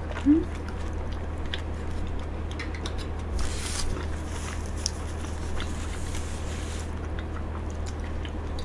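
Close-miked chewing and small wet mouth sounds of eating golden kiwi, with light spoon clicks, over a steady low hum. A short rising vocal sound comes near the start, and a tissue rustles about three and a half seconds in.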